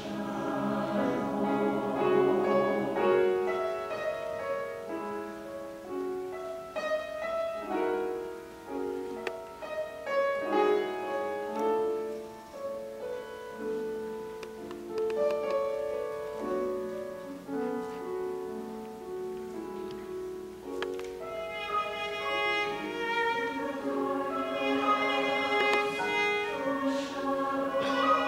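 Cello playing a melodic instrumental passage with accompaniment in a classical choral piece.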